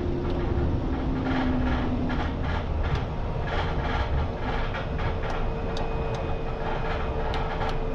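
A Cessna 208EX Grand Caravan's PT6A turboprop engine runs while the aircraft rolls along the airstrip after touchdown, heard inside the cockpit. Under it is a steady rumble from the wheels on the runway, with many short rattling clicks. A steady tone comes in about halfway through.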